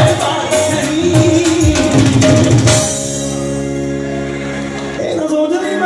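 Live Punjabi song performance: tabla and drum beating under a singer's voice and accompaniment. About three seconds in the percussion stops and a sustained chord is held for about two seconds before the drums come back in.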